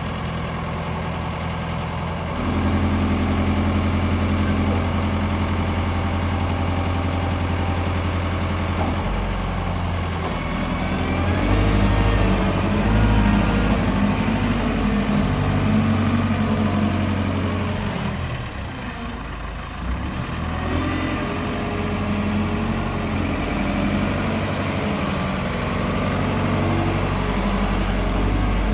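Diesel engine of a Combilift C14000 forklift running, picking up speed about two seconds in and changing pace several times, easing off briefly near two-thirds of the way through before picking up again. A faint high whine rises and falls along with it.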